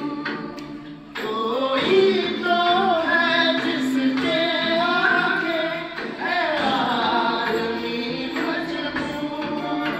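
Hindi song playing, with voices singing a melody over instrumental backing. It dips briefly about a second in, then the singing comes back in full.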